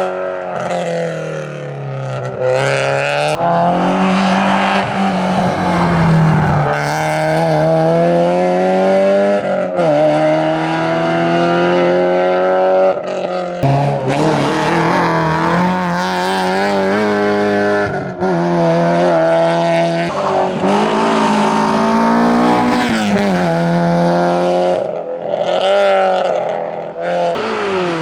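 Citroën Xsara hillclimb race car's engine revving hard under full throttle. The pitch climbs in long sweeps and drops sharply at each gear change or lift for a corner, several times over.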